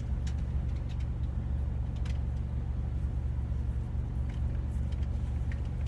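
Steady low rumble of a running vehicle engine, with a few faint clicks over it.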